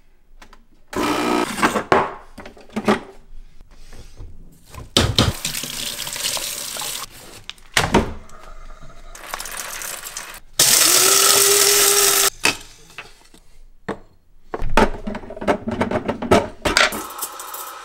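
Quick cuts of espresso-making sounds from a Breville espresso machine: clicks and knocks of handling the machine and its portafilter, and rushing, hissing noise. A little past the middle comes a loud, steady machine whir with a held hum, lasting about a second and a half.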